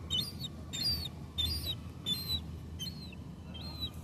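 A gull giving a run of short, high-pitched calls, six in all, evenly spaced about two-thirds of a second apart, over a low steady rumble of wind or surf.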